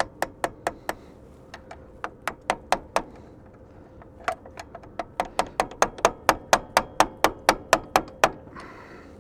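Hammer tapping a screwdriver used as a punch to drive a fitted piece of pipe along the shaft. The strikes are sharp and rapid, about four a second, in three runs, with the longest and loudest run in the second half.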